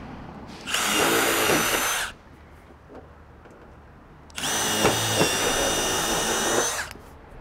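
Cordless impact driver running twice on the top of a steel barge capping: a burst of about a second and a half, then one of about two and a half seconds, each a high whine.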